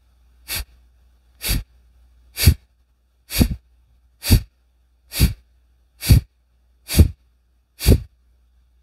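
A person doing Kapalabhati breathing: short, forceful exhalations pushed out through the nose, evenly spaced at about one a second. Nine pumps sound, the last of a round of about ten, ending near the end.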